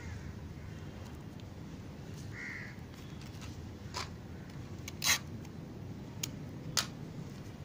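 A crow caws once about two and a half seconds in, over a steady low background hum. A few sharp clicks or taps are heard, the loudest about five seconds in.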